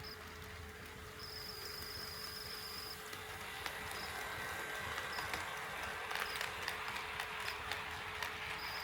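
HO scale model train running on the track and drawing closer: a buzzing run that grows louder from about a second in, with quick clicks of wheels over the rail joints in the second half.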